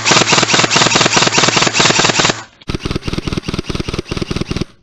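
Airsoft electric gun firing full-auto, two long bursts of rapid shots at about eight a second with the motor's hum under the first, broken by a short pause about two and a half seconds in.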